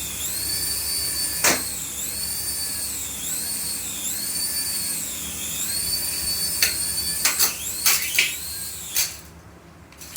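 Battery-powered toy's electronic sound effect from a small speaker: a high tone that swoops down and back up about once a second. Several sharp clicks and knocks come in the last few seconds, and the toy's sound cuts off about nine seconds in.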